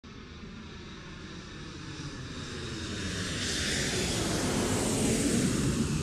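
Airplane fly-by sound effect: an aircraft's engine noise passing, swelling steadily louder and peaking near the end.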